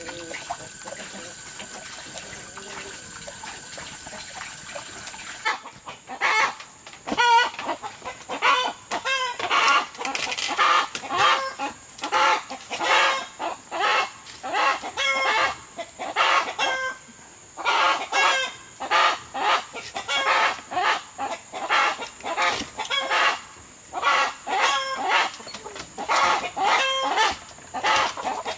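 Wood fire under a kettle hissing steadily for the first five seconds or so, then a flock of chickens clucking and calling loudly, many calls in quick succession, as a hand reaches into their coop.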